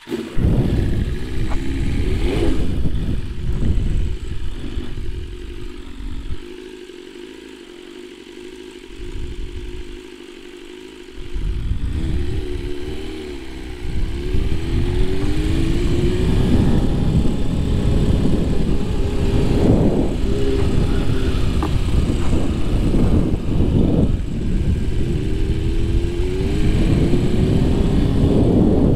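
BMW S1000RR's inline-four engine running as the bike pulls away at low speed, easing off to a quieter stretch for a few seconds in the middle, then several short rises in pitch as it accelerates.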